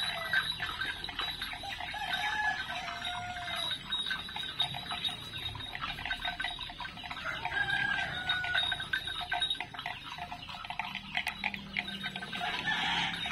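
Chickens clucking and calling in short bending notes, over a dense patter of quick clicks. A thin steady high tone runs beneath and stops about two-thirds of the way through.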